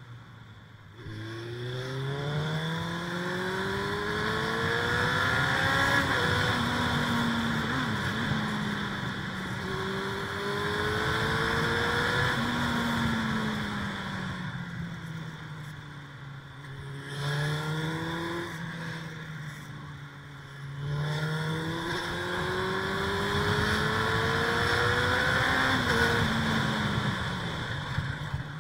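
Suzuki Bandit 600's inline-four engine accelerating through the gears, its pitch climbing and then dropping at each gear change, in about four pulls.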